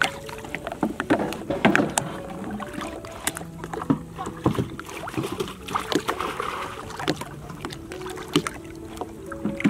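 Small wooden boat on the water: repeated knocks and clatter against the hull, with water splashing and lapping around it.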